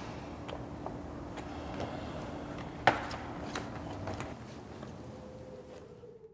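Papers and a pocket folder being handled and leafed through, with scattered light taps and one sharp snap about three seconds in, over a faint steady hum; the handling fades out near the end.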